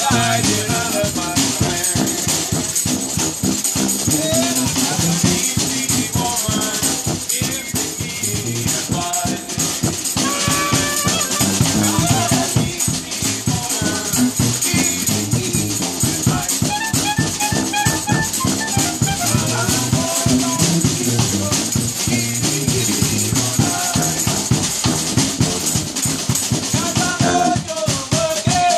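Small brass band playing live: sousaphone bass line under clarinet, trumpet and trombone, over a steady, fast percussion rhythm.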